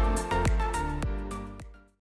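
Outro background music with a steady beat under sustained tones, fading out near the end.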